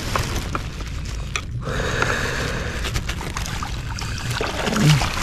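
Small wooden boat on open water: a steady low wind rumble on the microphone, with scattered small knocks and a brief rustle as fishing gear and a landing net are handled in the boat.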